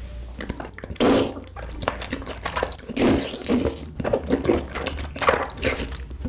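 Close-up wet slurping and squelching as thick rice cakes coated in cheese sauce are sucked into the mouth and chewed. The sound comes in several separate bursts, the loudest about a second in.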